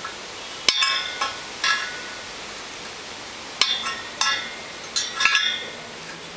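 Wire spokes of a motorcycle rear wheel being tapped with a small metal tool, about eight sharp taps in two groups, each giving a short metallic ring. A clear ring is the sign of a properly tightened spoke.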